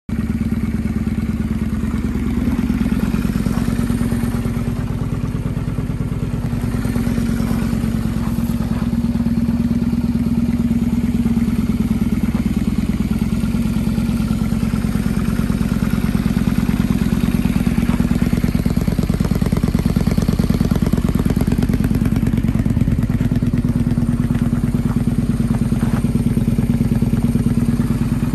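Honda Steed 400 VLX's V-twin engine idling steadily through slash-cut mufflers.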